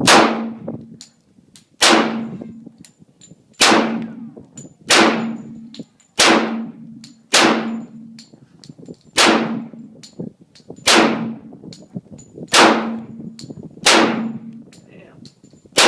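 Glock 21 Gen4 .45 ACP pistol fired in slow, steady succession, about ten shots roughly one and a half seconds apart, each followed by a metallic ringing clang.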